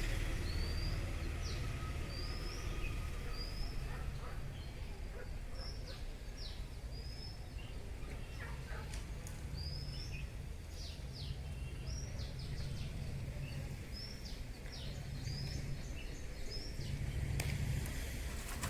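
Small birds chirping outdoors: short, high, quick chirps, about one a second, over a steady low background rumble.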